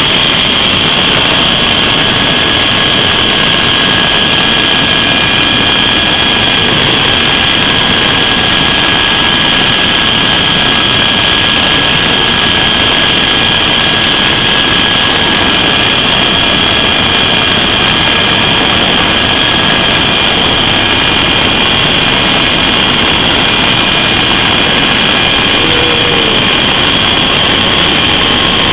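Helicopter in low flight heard from inside the cabin: a loud, steady high turbine whine over a dense, even rush of rotor and airflow.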